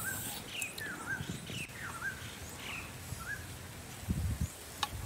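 Small bird chirping: a string of short, rising-then-falling two-part chirps, about one a second, with two sharp clicks near the end.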